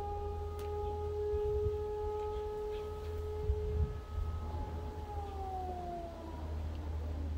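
Fire siren sounding a steady tone that, about five seconds in, slides down in pitch and fades as it winds down.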